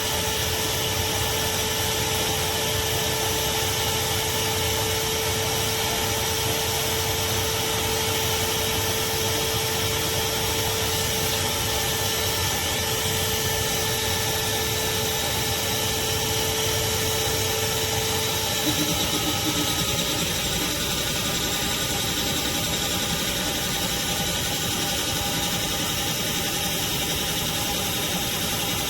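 Craftsman 16-gallon wet/dry shop vacuum running steadily with a loud rushing noise and motor whine; about two-thirds through, its tone shifts lower.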